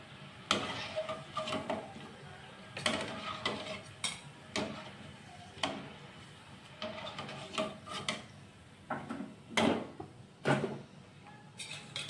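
Wire spider skimmer and metal ladle scraping and clinking against an aluminium kadai at irregular intervals as fried shakkar para are scooped out of hot oil, over a low steady hiss of frying oil.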